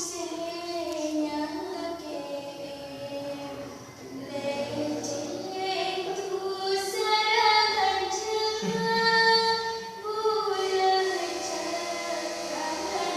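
A woman singing in the dangdut style, unamplified, drawing out long ornamented notes that bend up and down. A lower pitched sound, likely a second voice, comes in briefly about nine seconds in.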